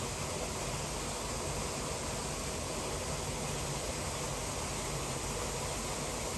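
Heavy rain in a downpour, a steady, even rushing noise.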